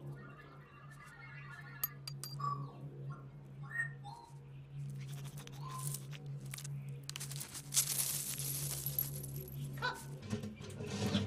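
Cartoon sound effects for a sabre-toothed squirrel: small squeaky chirps and sharp little clicks over a steady low hum. Near the end comes a loud hissy rush of about two seconds, as of him scrabbling into the snow.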